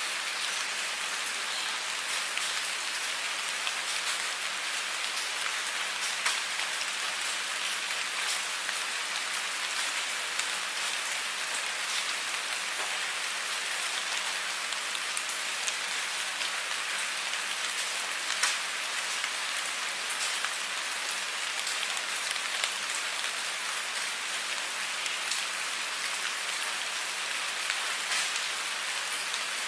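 Steady rain falling, an even hiss with scattered louder individual drops.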